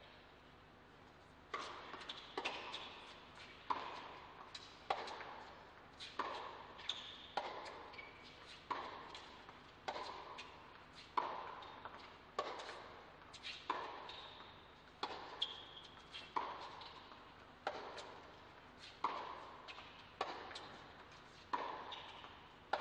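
A tennis serve, then a long baseline rally: sharp pocks of the ball off the racket strings, roughly one every 1.2 seconds, starting about a second and a half in, with fainter bounces between. Each strike rings on briefly in the indoor arena.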